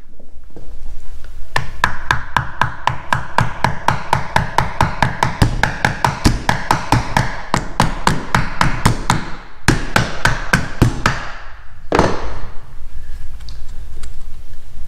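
Hammer tapping glued wooden chips into the stripped screw holes of a door hinge: a quick, even run of light blows, about four a second, with a short pause near the end of the run, then stopping about two-thirds of the way through.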